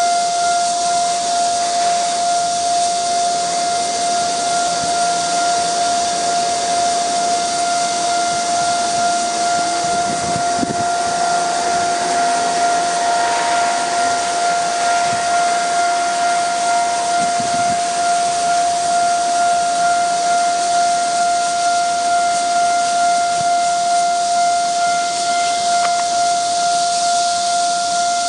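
Taiwan Railways level-crossing warning bell sounding continuously as a steady electronic tone, the signal that a train is approaching and the barriers are down. A steady high hiss lies beneath it.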